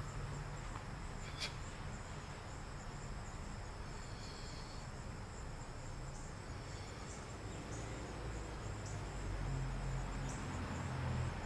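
Crickets chirping steadily in a garden, a continuous high-pitched drone. A low rumble grows in over the second half, and there is one faint click about a second and a half in.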